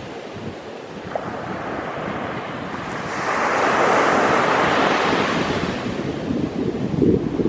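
Ocean surf breaking on a beach, with wind buffeting the microphone. A wave swells about three seconds in and breaks into a loud rushing wash that slowly fades, with low wind gusts near the end.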